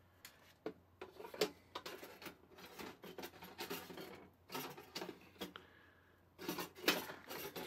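Small baking pan being pushed through a 1997 Kenner Easy Bake Oven with its pan pusher: a run of light scrapes and clicks, with two louder clusters about halfway and near the end.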